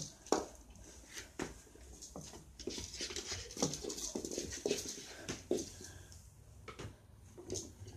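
A kitten scampering on a wooden floor, its paws scuffing and tapping as it pounces on and bats a small toy ball: a string of light, irregular taps.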